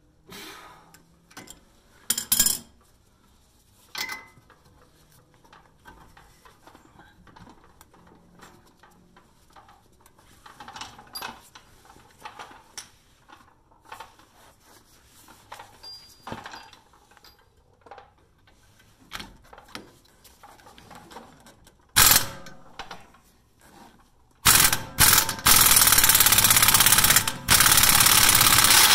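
Pneumatic impact wrench hammering on a front hub-to-knuckle bolt: one short burst, then a longer run of rapid hammering, broken once, near the end. Before it, scattered clicks and clanks of a ratchet and hand tools on the steering knuckle.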